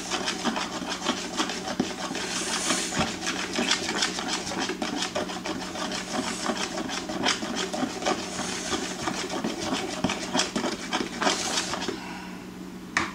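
A utensil stirring cake batter in a bowl, with rapid, even scraping strokes against the bowl that stop about twelve seconds in.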